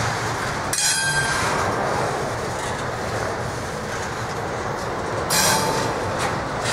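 Double-stack intermodal well cars rolling past with a steady rumble of steel wheels on rail, and brief high wheel squeals about a second in and again around five and a half seconds, the second the loudest.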